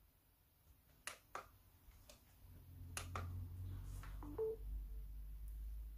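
Handling clicks of a USB charging cable plug fumbled at and pushed into a smartphone's charging port, then a short two-note electronic beep as charging begins. A faint low hum runs under the second half.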